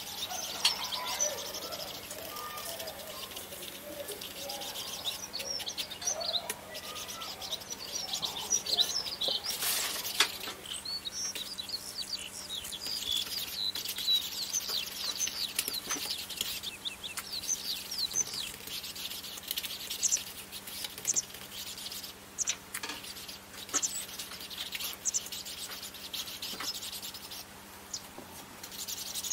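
Birds chirping and singing: many short rising and falling calls, with a few lower whistled notes near the start.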